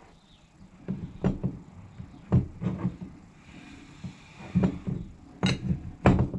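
Metal clinks and knocks as a section of a Cessna hydraulic valve is screwed onto the valve body and a wrench is put on it. About seven sharp strikes, scattered over a few seconds.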